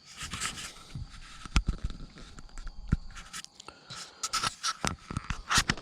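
Handling noise: irregular scraping and rubbing with scattered sharp clicks and knocks.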